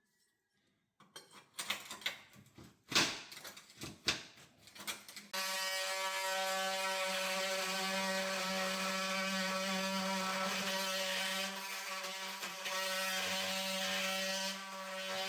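A few scattered knocks and clicks, then a power tool starts about five seconds in and runs with a steady, even buzz while cutting out the wooden form under a kitchen cabinet.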